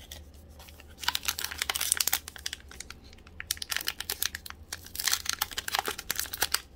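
Foil wrapper of an Upper Deck hockey card pack crinkling and crackling as fingers tear it open, starting about a second in with short pauses.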